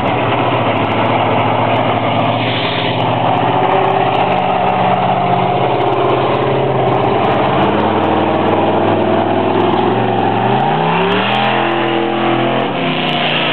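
Bigfoot monster truck's engine running steadily, then revving up with a rising pitch about ten seconds in as the truck accelerates away, and holding at the higher pitch.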